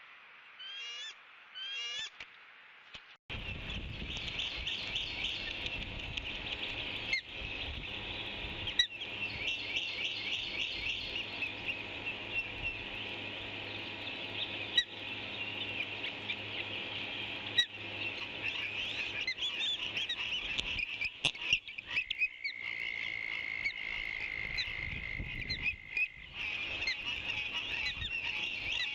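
Dense chorus of high bird calls, rapid chirps repeating on and on. It begins suddenly a few seconds in, after two short runs of chirps. A steady whistle-like tone holds for a few seconds in the last third.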